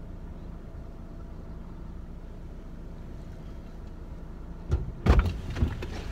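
Steady low hum of a car idling, heard from inside the cabin. About five seconds in come a few loud thumps and knocks.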